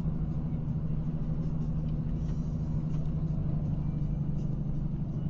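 Steady low road-and-engine drone of a vehicle cruising at highway speed, heard from inside the cab, with tyre rumble and no sudden sounds.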